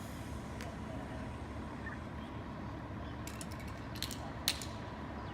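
Street background after a car crash: a steady low rumble with a quick run of sharp mechanical clicks about three seconds in, then two more sharp clicks, the louder one about four and a half seconds in.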